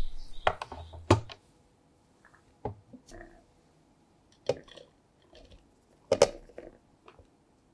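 Sharp plastic clicks and knocks as a food chopper's clear plastic bowl and blade unit are set in place on a kitchen scale, then a small glass bowl knocks against the rim as dry ingredients are tipped in. Five loud knocks come irregularly, one to two seconds apart, with faint rustling between.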